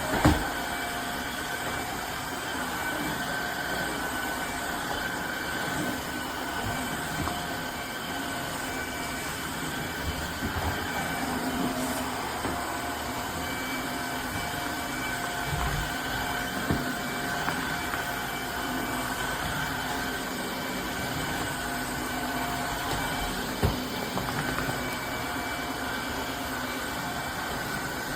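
Tineco Floor ONE S5 cordless wet-dry vacuum mop running steadily, its motor giving a constant high whine over a rushing noise, with a few knocks along the way, the loudest right at the start.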